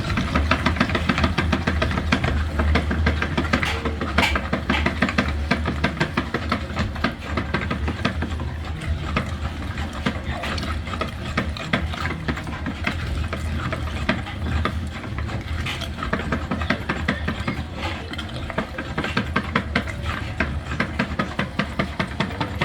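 Homemade meat grinder running: a steady low hum with fast, continuous rattling and clicking.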